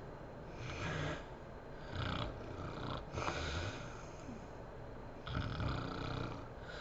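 A woman snoring in her sleep, with about four rasping snores, one per breath, separated by short pauses.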